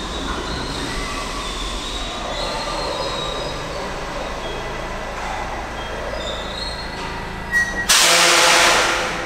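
NYC subway G train pulling into a station and slowing, its wheels and brakes squealing in thin high tones over the rumble. About eight seconds in, as the train comes to a stop, a loud hiss of air from the brakes starts and then fades.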